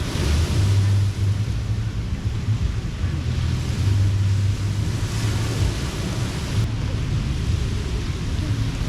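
Surf washing onto a sandy beach, swelling and easing about three times, with wind buffeting the microphone in a steady low rumble.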